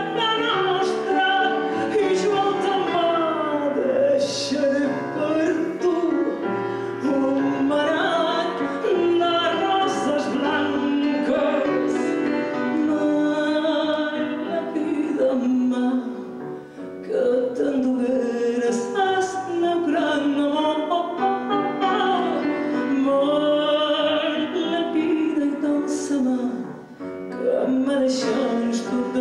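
A woman singing a habanera with grand piano accompaniment. The music pauses briefly twice, about halfway through and near the end.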